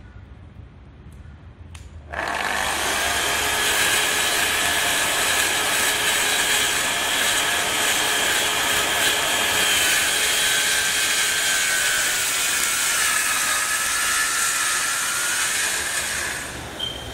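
Festool HK 55 circular saw making a plunge cut along a guide rail through a timber floorboard. It starts about two seconds in and runs steadily with a whine that dips slightly in pitch later in the cut, then stops shortly before the end, leaving a quieter steady noise.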